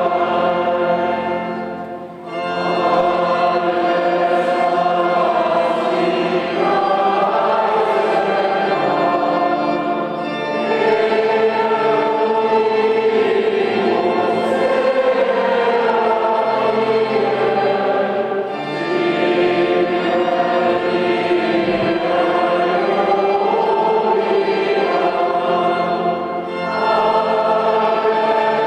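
Choir singing sacred music in long held chords, with brief pauses between phrases about every eight seconds.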